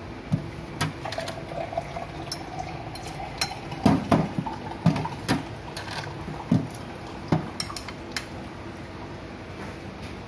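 A metal spoon clinking and scraping against a ceramic plate: about nine sharp, irregular knocks, the loudest around four to five seconds in.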